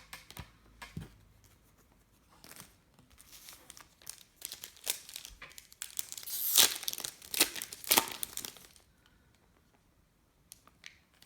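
Foil trading-card pack being torn open and its wrapper crinkled, with a few light clicks of handling first and the loudest tearing and crackling a little past the middle.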